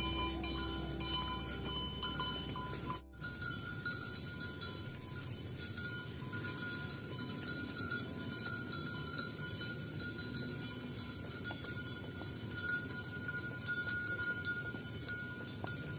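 Plucked-string music that stops suddenly about three seconds in, then bells on grazing cattle tinkling and clanking steadily.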